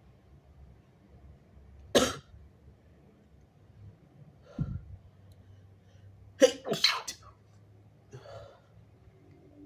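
A person sneezing in short separate fits: one sharp sneeze about two seconds in, a shorter, lower sound a couple of seconds later, then a quick run of three or four sneezes in a row, and a weaker one near the end.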